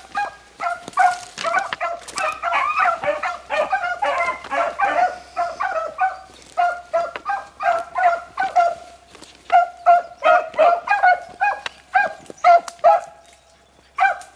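A pack of beagles baying as they run a rabbit by scent: many quick, repeated hound barks, several dogs overlapping at once, dying away near the end with a single last bark.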